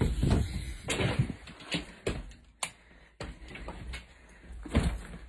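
Irregular knocks, clicks and thumps with low rumbling handling noise, from a person moving about while carrying the phone that is recording.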